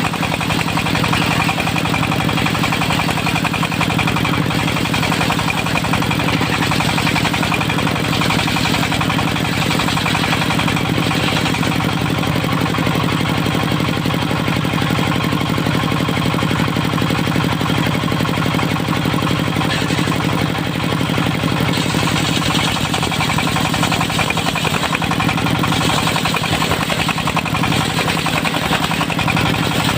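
Diesel engine of a portable circular sawmill running steadily with a rapid, even firing beat.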